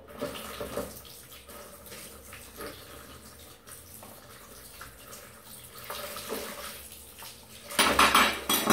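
Sink tap running, water splashing into the basin while glass tumblers are rinsed, with light clinks of glass. A louder burst comes near the end.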